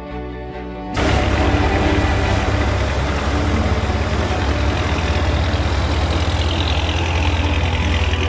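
Riverboat engine running steadily and loud, with a fast low throb under a wide hiss. It comes in abruptly about a second in, after a brief quieter stretch.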